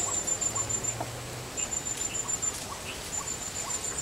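An insect calling: a high-pitched pulsed trill in three bursts of about a second each, with faint short chirps beneath it.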